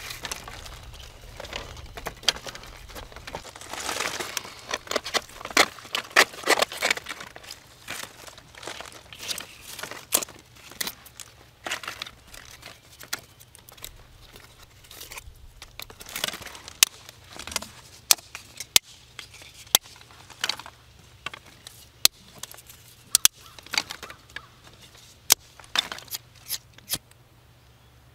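Birch bark being peeled and torn by hand: irregular crinkling and tearing with sharp snaps, busiest a few seconds in.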